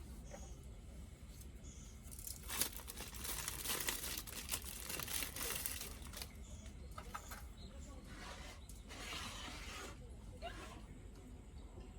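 Irregular rustling and crinkling noise in bursts, heaviest from about two to six seconds in and again near the ninth second, with a few sharp clicks.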